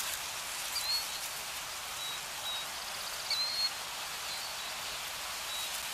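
Steady hissing noise like rain or wind, with a few faint, short high chirps now and then: the ambient sound bed of an animated outro.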